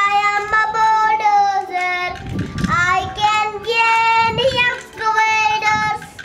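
A child singing a tune unaccompanied, in long held notes that glide between pitches, with a short break about two seconds in.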